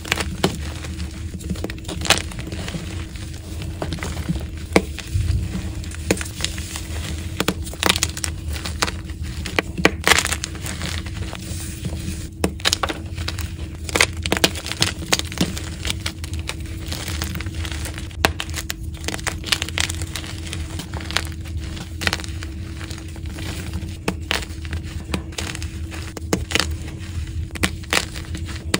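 Soft blocks of pearly gym chalk being crushed and crumbled in bare hands, giving a dense run of irregular crisp crunches and cracks as the blocks break into chunks and powder.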